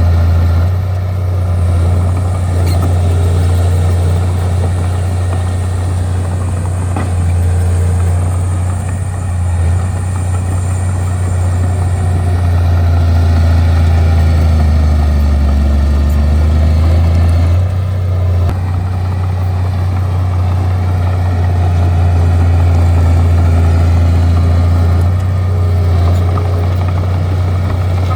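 Bulldozer's diesel engine running with a steady low drone while the machine works, its note easing off and coming back a few times.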